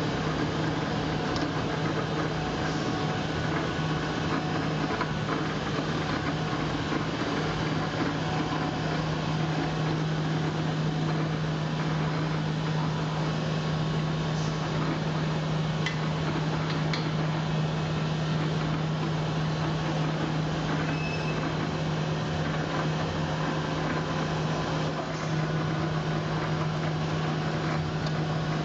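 Steady mechanical hum: a constant low drone with a dense noise over it and a few faint ticks.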